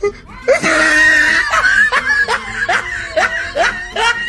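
A person laughing hard in quick repeated bursts, starting with a loud outburst about half a second in.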